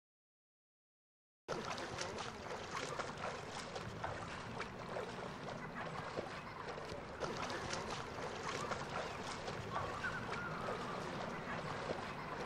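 Silence for about a second and a half, then outdoor ambience cuts in abruptly: a steady rush of wind on the microphone with many small crackles running through it.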